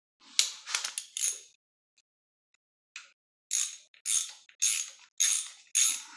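A hand ratchet clicking as it is worked in short back-and-forth strokes, about two a second from about halfway in, to loosen bolts on the front of a 6.0 L LY6 engine block. A brief clatter of clicks comes near the start.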